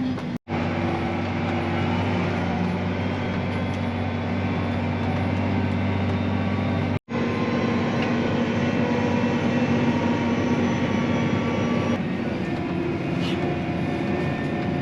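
Steady engine drone of a farm tractor heard from inside its cab, cut by two sudden, very short dropouts, about half a second in and about seven seconds in.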